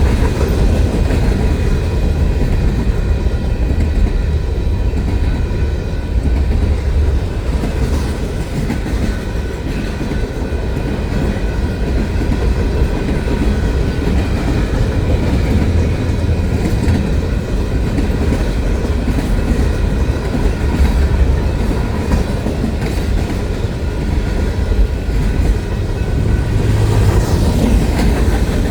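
Railroad cars rolling steadily past, a continuous low rumble of steel wheels on the rails.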